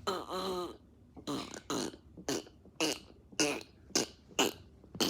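Fart noises blown into cupped hands with the mouth: a string of about eight short, pitched blasts roughly half a second apart, the first one longer.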